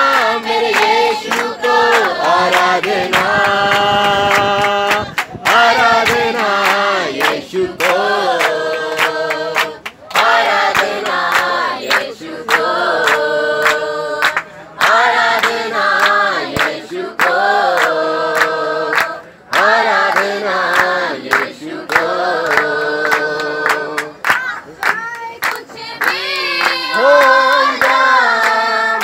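A group of young people singing a song together, with hand clapping keeping time. The singing pauses briefly between lines, while the clapping carries on.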